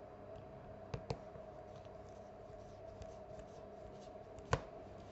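Small clicks and handling taps from a smartphone being pressed together by hand during reassembly: two light clicks about a second in and a sharper, louder click near the end, over a steady faint hum.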